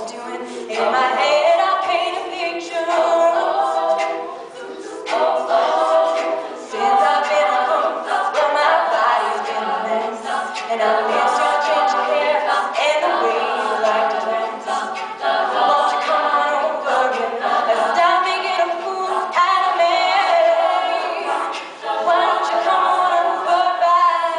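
A women's a cappella group singing in harmony: a lead voice over the group's backing vocals, with no instruments.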